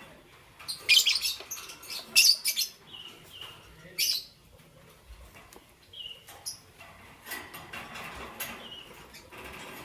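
Lovebirds chirping in short, shrill, scratchy bursts, loudest about one, two and four seconds in, with softer chirps and brief high notes through the rest.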